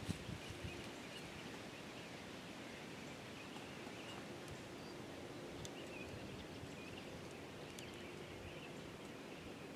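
Quiet woodland ambience: a steady background hiss with scattered faint, high bird chirps.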